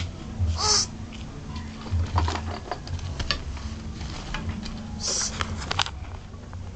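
Rustling, scraping and clicking of a handheld phone being jostled and rubbed against its microphone, over a low steady hum, with two short hissy scrapes, one near the start and one about five seconds in.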